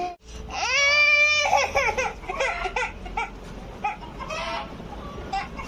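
Infant crying: one long wail about half a second in, then shorter broken sobbing cries.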